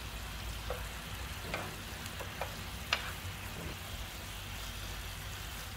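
Pork belly slices sizzling steadily in a fish-sauce glaze in a non-stick frying pan, with a few light clicks of wooden chopsticks against the pan and meat as the pieces are turned; the sharpest click comes about three seconds in.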